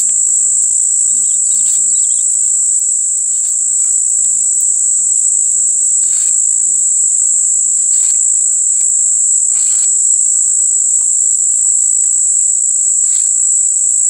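Steady, loud high-pitched insect drone, with short scraping strokes every second or two as a wooden digging stick scrapes a sansevieria leaf to strip out its fibres.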